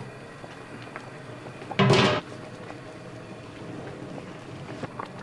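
Lid of a large aluminium stockpot lifted off the rim about two seconds in: one short, loud metallic scrape and clank. Around it, the anchovy and radish stock in the pot boils with quieter bubbling and small pops.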